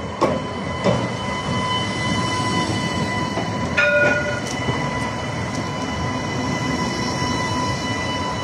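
Alstom Citadis low-floor tram running slowly past close by as it pulls into a stop: wheels rumbling on the rails with a steady high whine, two sharp knocks in the first second, and a short tone about four seconds in.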